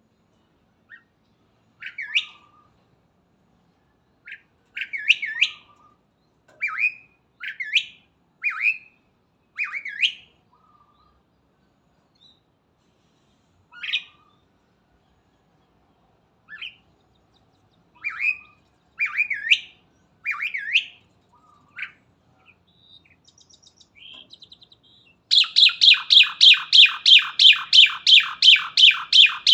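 A jalak, a starling-family songbird, calling energetically: short, separate, upswept whistled notes with pauses between them, then near the end a fast, loud run of repeated chattering notes, about four or five a second.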